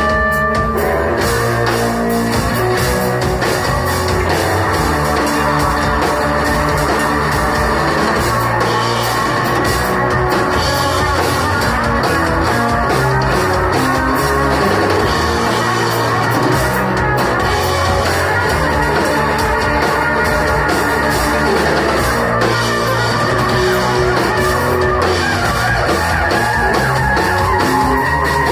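Rock band playing live, with guitar and drums, loud and steady throughout.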